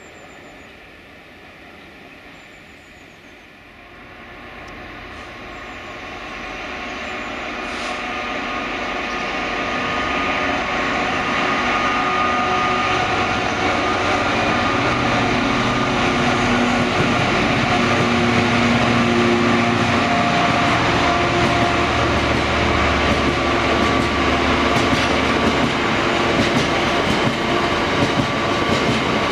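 A GB Railfreight Class 66 diesel locomotive and a long rake of biomass hopper wagons approaching and passing, with engine and wheels running on the rails. The sound grows louder over the first ten seconds, then holds steady as the wagons roll by.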